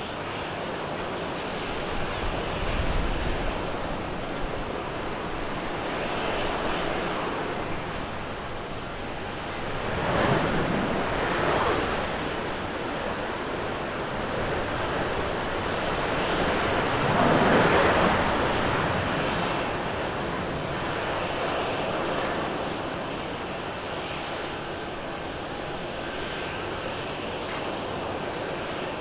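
Twin jet engines of a Hawaiian Airlines Airbus A330-200 just after touchdown, running through the landing roll-out. The engine noise holds steady and swells twice, about ten and seventeen seconds in.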